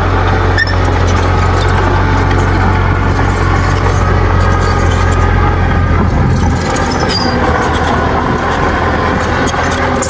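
Small crawler bulldozer's diesel engine running steadily as it drives over loose dirt, its low hum easing off a little for a few seconds past the middle and picking up again near the end.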